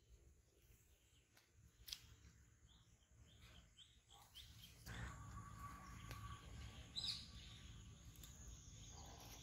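Faint outdoor ambience with a small bird chirping: a quick run of short high chirps about three to four seconds in, and one louder chirp near seven seconds. A low background noise rises about five seconds in.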